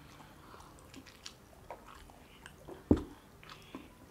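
Close-up mouth sounds of people chewing and biting mutton curry and rice: scattered soft wet clicks, with one louder, short low thump about three seconds in.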